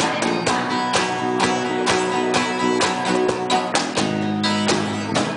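A live rock band playing an instrumental passage: strummed guitars over a steady beat, with no vocals.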